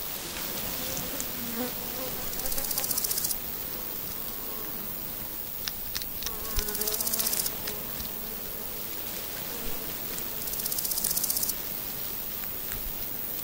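An insect stridulating in three high buzzing bursts of about a second each, roughly four seconds apart, with scattered soft clicks of baby hedgehogs chewing their food between them.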